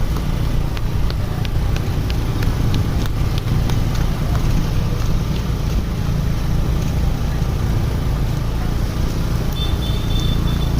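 Bus engine running with a steady deep rumble, with a few faint ticks in the first seconds and a thin high tone coming in near the end.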